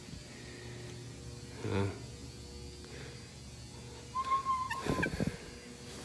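A steady low electrical hum fills the quiet, with a short voiced sound about two seconds in. About four seconds in comes a brief, steady high tone, followed by a short clatter.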